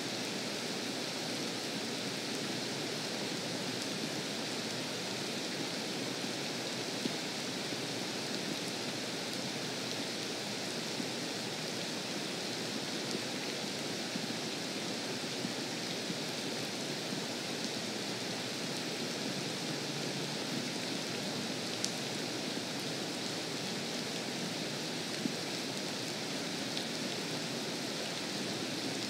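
Steady rain falling on a lake's surface, with a few sharper drop ticks here and there.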